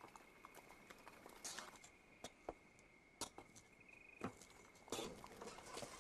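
Faint street clatter: scattered, irregular knocks about once a second, under a faint steady high tone.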